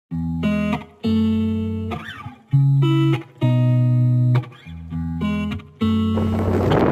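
Background music: the instrumental opening of a pop song, led by guitar chords that change about once a second.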